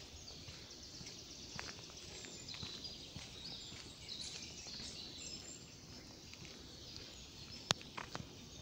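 Footsteps on a gravel forest path, with birds singing in the middle and a few sharp clicks near the end.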